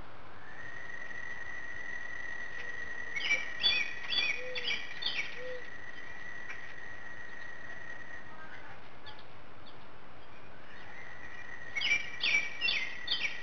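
A songbird singing two bouts of five or six quick, clear repeated notes, the second bout near the end. A steady high-pitched drone runs underneath.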